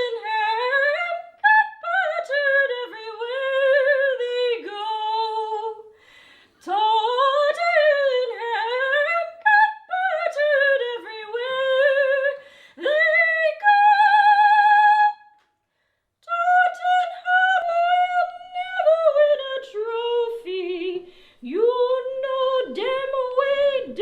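A woman singing alone without accompaniment, high in her range, in swooping phrases with held notes sung with vibrato. She breaks off briefly about two-thirds of the way through.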